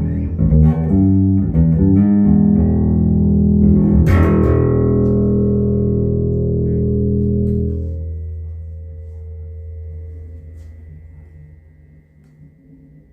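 Fender American Professional II Precision Bass played through a Fender Stage 800 bass amp with a flat EQ: a quick run of plucked notes, then a hard-struck note about four seconds in left to ring out and slowly fade away.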